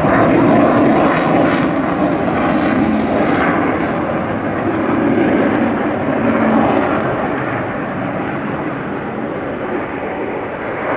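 Jet noise from a USAF F-35A Lightning II's single Pratt & Whitney F135 turbofan flying a display: a loud, steady rush, loudest about half a second in, swelling again midway and a little softer over the last few seconds.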